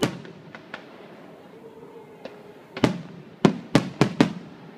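Aerial fireworks going off: a bang right at the start and some faint crackling, then a quick run of about five bangs a little under three seconds in.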